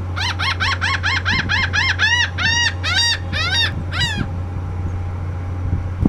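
Laughing gull giving its long call: a rapid series of about fifteen laughing notes, about four a second, the notes growing longer after about two seconds and ending just past four seconds.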